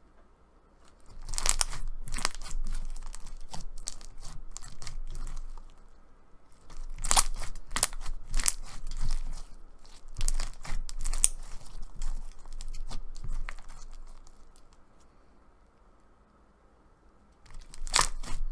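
Clear slime packed with fishbowl beads being squeezed and pressed by hand, crunching and crackling in several spells with short pauses between them.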